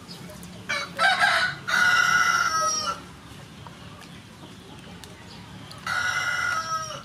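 Rooster crowing twice: a long, loud crow in two parts, then a shorter crow near the end that falls in pitch as it finishes.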